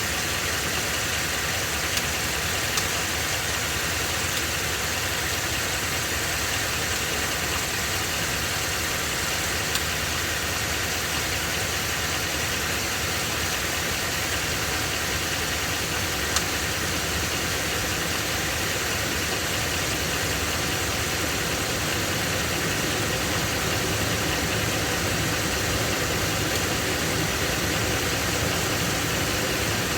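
Ford 7.3-liter Godzilla gas V8 in an F-250 running steadily at idle with an abnormal internal engine noise. The dealer did not cure the noise, and the engine is being replaced.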